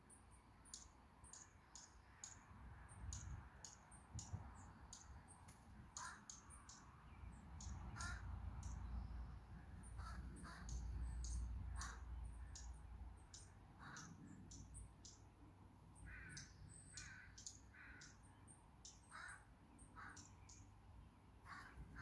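Faint evening bird chorus: a crow cawing in short calls, several in a row, among many high, thin chirps from small birds. A low rumble underneath is strongest around the middle.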